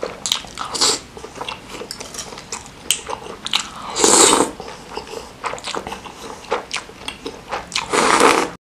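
Wet mouth sounds of eating: chewing and lip smacks, with two loud slurps of noodles in spicy broth, one about four seconds in and one near the end.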